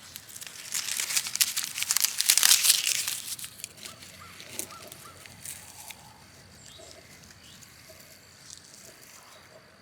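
Dry, charred corn stalks and leaves crinkling and crackling as they are handled and gathered, dense and loud for the first three and a half seconds or so, then quiet.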